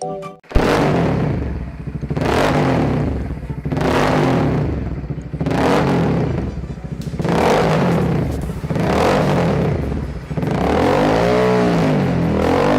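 Kawasaki 400cc motorcycle engine revving through a newly fitted SC Project exhaust. It gives a series of sharp throttle blips about every second and a half, then smoother rises and falls in pitch near the end.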